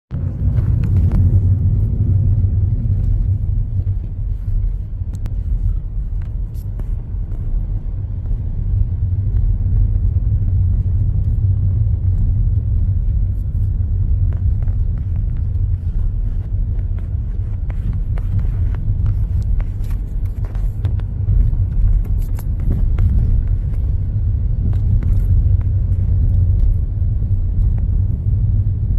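Car driving over a rough, badly patched road: a steady low rumble of tyres and engine, with frequent small knocks and clicks.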